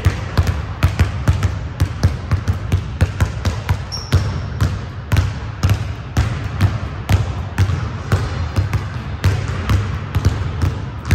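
A basketball being dribbled on a gym court: a steady run of bounces, about two to three a second, with a short high squeak about four seconds in.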